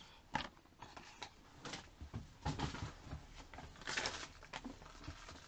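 Faint, scattered rustles and light knocks of packaged products and packaging being handled, with a slightly louder rustle about four seconds in.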